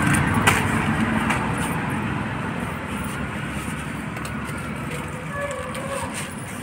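Street traffic noise, a vehicle rumbling past and fading away.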